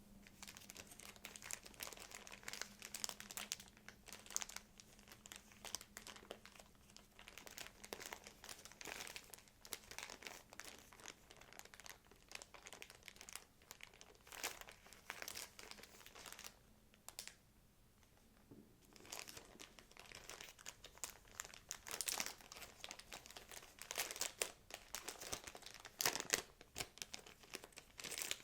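Packaging crinkling and rustling as it is handled and unwrapped by hand: dense, close crackles with a pause of about a second and a half just past the middle.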